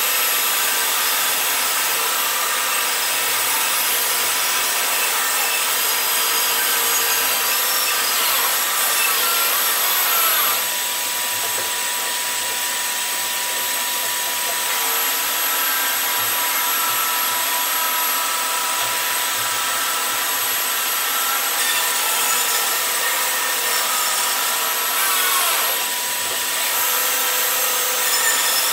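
Bandsaw running and cutting through a thick hardwood guitar body blank: a steady machine noise with a thin whine, easing slightly about ten seconds in and again near the end.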